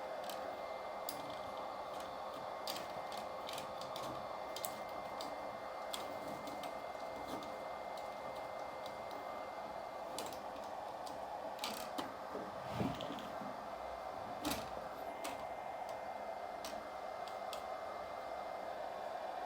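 Steady airy hiss with a faint steady tone under it, scattered light clicks and taps throughout, and two soft thumps about 13 and 14.5 seconds in.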